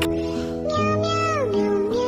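Background music carrying a drawn-out, sung cat meow melody: two long held notes, each sliding down in pitch at its end.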